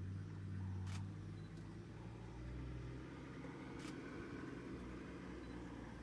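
A vehicle engine idling steadily with a low hum, with two sharp clicks about three seconds apart.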